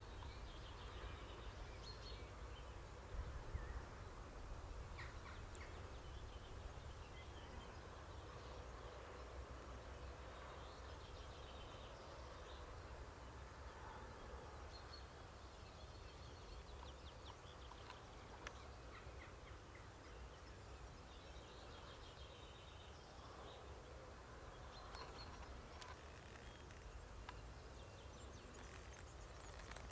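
Faint birdsong at dawn, scattered short chirps and trills, over a steady low rumble.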